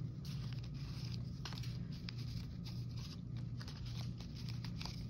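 Paper ephemera pieces being handled and shuffled: a run of soft, irregular rustles and light taps over a steady low hum.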